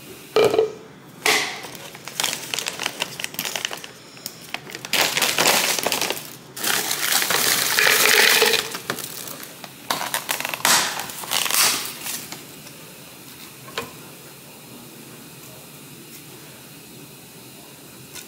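Plastic bag crinkling and mango chunks clattering into a plastic blender cup in several pours, loudest about five to nine seconds in. The clatter stops about twelve seconds in and only faint background sound remains.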